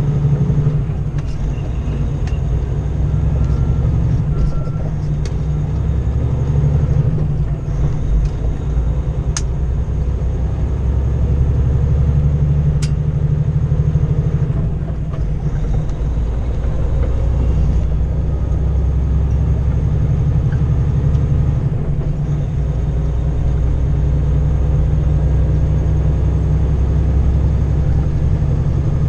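A 2012 Kenworth W900L's 600 hp Cummins ISX diesel engine running under way, a steady low drone heard from inside the cab. Its note dips and changes a few times.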